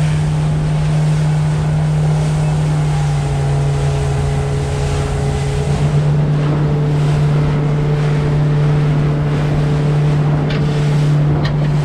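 Outboard motor running steadily at cruising speed, with water rushing past the hull and wind on the microphone.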